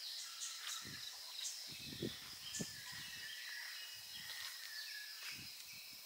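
Birds chirping in short, scattered high calls over a steady high-pitched hum, with a few soft low thumps.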